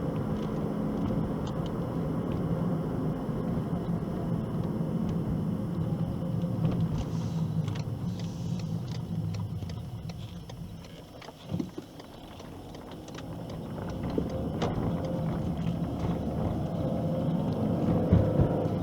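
A motor vehicle running with a steady low rumble, which fades for a couple of seconds about halfway through and then builds back up.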